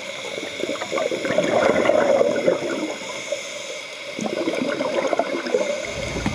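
Scuba regulator exhaust bubbles gurgling and crackling underwater, swelling twice as a diver exhales.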